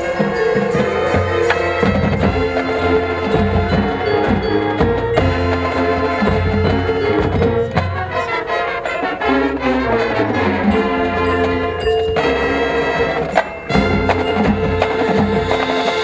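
High school marching band playing its field show, with mallet percussion and drums prominent. The music briefly drops back about thirteen and a half seconds in, then comes back with a loud accented hit.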